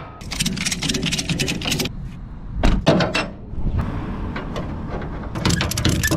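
Ratchet strap being tightened over a car's wheel on a trailer: runs of quick metal clicks from the ratchet handle, with a few louder knocks in between, and another fast run of clicks near the end.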